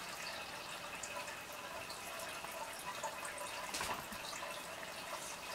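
A cat chewing and tearing at crinkly green paper: a run of small, irregular crackles and clicks, loudest about four seconds in.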